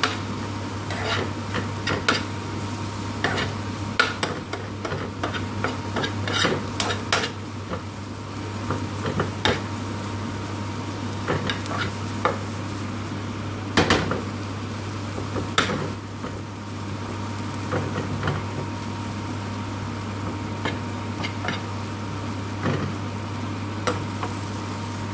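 Metal spoon stirring and scraping onions frying with curry powder and turmeric in a frying pan. The spoon clinks irregularly against the pan over a light sizzle and a steady low hum.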